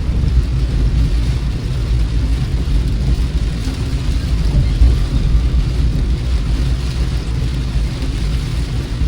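Steady low rumble of a car driving, heard inside the cabin, with an even hiss of rain and wet road above it.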